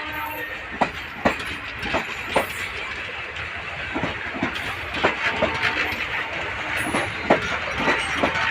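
Passenger train running on the track: a steady rumble of wheels with sharp clacks about once or twice a second as they cross rail joints.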